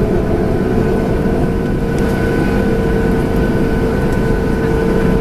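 Boeing 737-800's CFM56 turbofan engines at taxi power, heard inside the cabin: a steady rumble with a steady whine over it.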